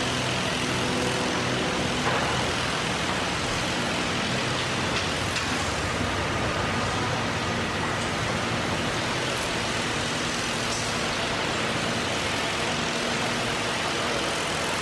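Construction site ambience: a steady wash of machinery noise with a low engine hum, and a few faint knocks.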